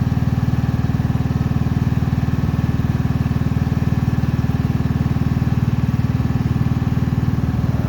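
Cub Cadet Series 2000 lawn tractor's engine idling steadily and smoothly.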